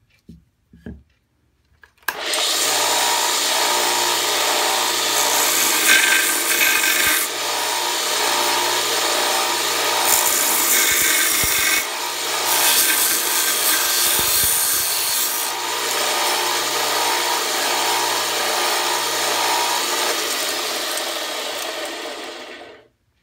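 A few small handling clicks, then a small Central Machinery belt sander starts up about two seconds in and runs steadily. It grinds the top of a ball peen hammer's head and the wooden handle end in its eye, to expose the wedge. The grinding gets louder and harsher in stretches as the hammer is pressed against the belt, and the sander shuts off near the end.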